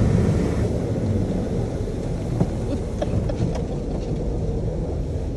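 Automatic car wash equipment working over the car, heard from inside the cabin: a steady low rumble with water and foam hissing against the body and windows. The higher hiss drops away about a second in.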